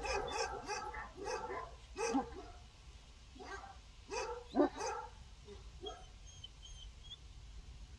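Kangal guard dog barking an alert: a quick run of barks in the first two seconds or so, a few spaced barks around the middle, then trailing off.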